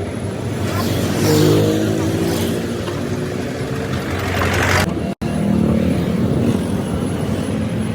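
Vehicle engine running loudly, its pitch rising and shifting as it revs during the first few seconds, then running steadily after a sudden cut about five seconds in.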